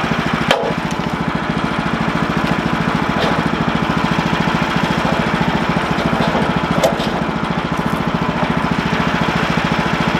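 Portable bandsaw mill's gas engine idling steadily while an oak log is rolled and set on the steel mill bed with a cant hook. A sharp knock of wood against steel comes about half a second in, and another about seven seconds in.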